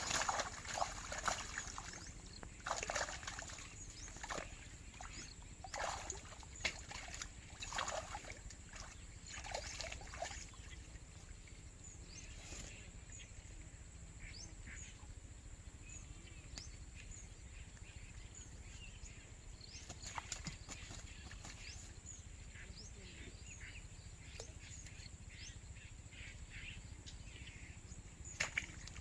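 Water sloshing and splashing irregularly at the water's edge, heaviest over the first ten seconds with a few more later, against scattered short chirps and a steady high hiss.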